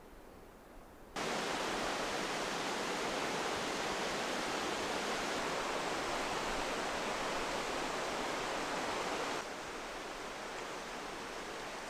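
Steady rushing of a mountain river, a loud even wash of water noise. It comes in suddenly about a second in and drops slightly in level near the end.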